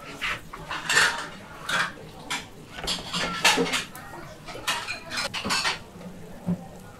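Dishes and metal utensils clattering in quick, irregular knocks with a faint metallic ring, thinning out about six seconds in.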